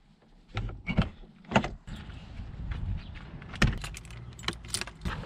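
Truck camper's entry door being latched and locked: several sharp clicks and clunks from the latch and lock, with a bunch of keys on a carabiner jangling as the key goes into the lock. A low steady rumble sits underneath from about two seconds in.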